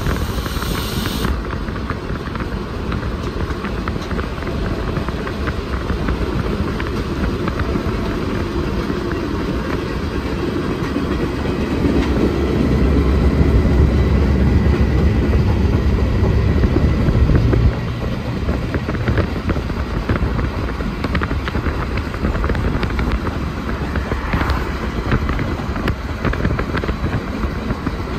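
Diesel freight locomotives running, heard from a car moving alongside the train, mixed with road and wind noise. A deep engine rumble grows louder about twelve seconds in and drops away suddenly a few seconds later.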